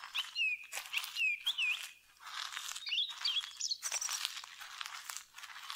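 Footsteps crunching unevenly, each step a short rustling crunch, while a small bird chirps in quick, curling calls over them.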